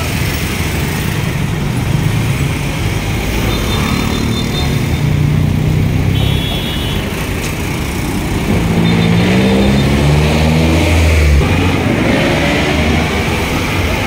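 Busy road traffic: engines of trucks, cars and motorcycles running and passing close by. About nine seconds in, an engine rises in pitch as it accelerates, over a deep heavy-engine drone.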